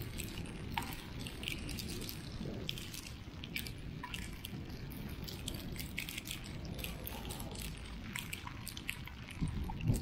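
Wind buffeting the microphone in a snowstorm: a steady low rumble, with scattered sharp ticks throughout and a stronger gust near the end.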